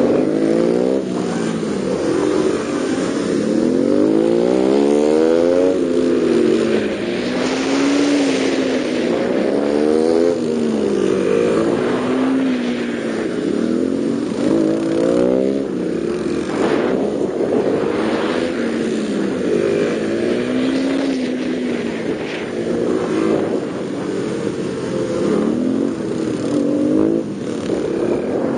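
Yamaha Serow 225WE's air-cooled single-cylinder four-stroke engine, heard from on board, revving up and dropping back over and over as the bike is ridden through tight turns, a fresh rise in pitch every two to three seconds.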